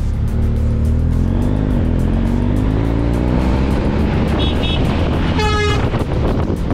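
Motorcycle engine rising in pitch as the bike pulls out to overtake a truck on a climbing mountain road, with wind noise and the truck's engine beside it. One short horn toot sounds about five and a half seconds in.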